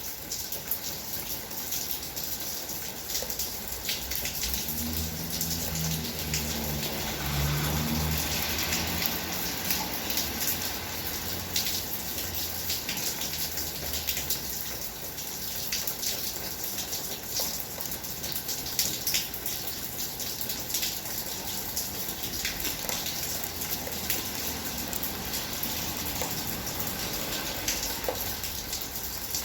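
Heavy rain pouring steadily, with many sharp drop splashes. A low rumble comes in about five seconds in and fades by about ten seconds.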